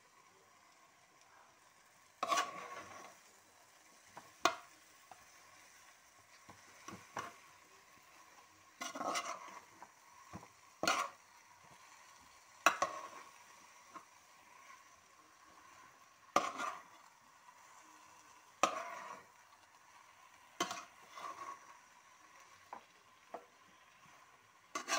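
A spatula stirring chicken pieces through thick masala gravy in a pan: short scraping strokes with clicks against the pan, about every two seconds, over a faint sizzle.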